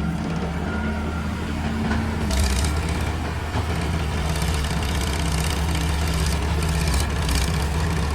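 Excavator's diesel engine running steadily under load, with a rough crunching and scraping from about two seconds in as the bucket cuts into soil.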